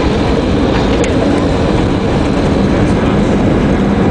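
Jet airliner's engines and rushing air heard from inside the cabin as the plane rolls on the ground after landing, a loud, steady noise with a low rumble.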